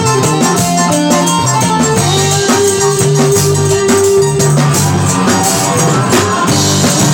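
Live rock band playing loud and close: electric guitars over a drum kit with cymbals. One note is held for about two seconds near the middle.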